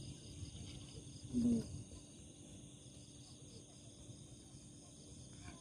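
Crickets chirring in a steady high chorus that pulses gently, with one brief low vocal sound about a second and a half in.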